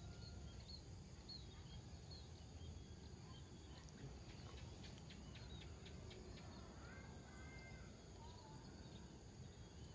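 Near silence: a low, even rumble with faint, scattered bird chirps, most of them in the second half.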